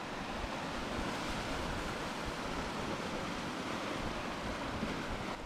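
Lake waves washing against a rocky shore, mixed with wind on the microphone: a steady, even rush with no distinct events.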